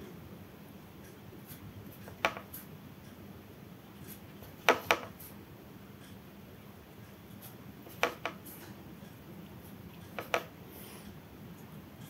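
Quiet work with a fine paintbrush on paper, drawing thin lines in black gouache. It is broken by short sharp clicks, most in close pairs, every two or three seconds.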